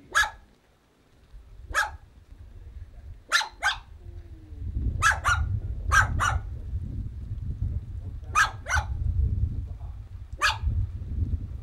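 A dog barking in short single and double barks, about a dozen in all, over a low rumble of wind on the microphone.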